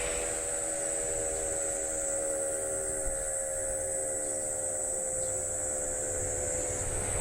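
Electric motor siren sounding as a village time signal, holding one steady wail made of several tones at once, with a steady high hiss above it.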